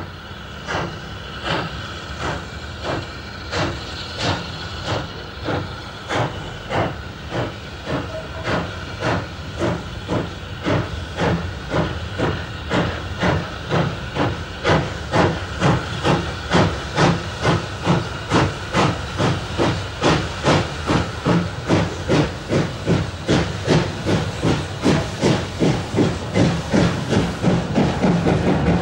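Double-headed steam locomotives, led by LSWR Drummond M7 0-4-4 tank engine No. 245, working away with exhaust beats about three a second over a steady hiss of steam. The beats grow louder as the engines approach.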